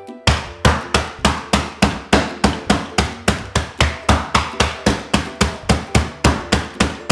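Rolling pin repeatedly whacking a zip-lock bag of plain sweet biscuits wrapped in a tea towel, about three blows a second, crushing the biscuits into crumbs.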